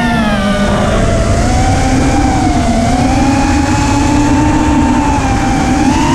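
FPV racing quadcopter's brushless motors and propellers whining, the pitch falling in the first second and rising again near the end as the throttle changes. Heard through the onboard camera's microphone, with low wind rumble.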